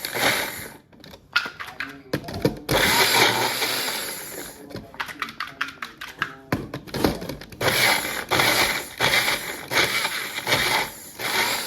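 Electric blender running in short stop-start pulses, with a couple of longer runs of a second or more in between.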